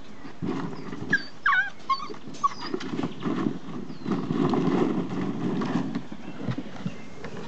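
Old English Sheepdog puppies giving a few short, wavering high-pitched whines about a second in, over the rattle and clicking of plastic play balls as the puppies dig and scramble in a ball pit.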